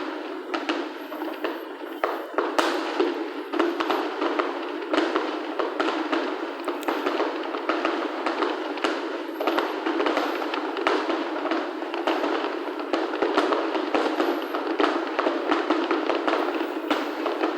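Fireworks finale: many shells bursting in quick succession, a dense, unbroken run of bangs and crackles.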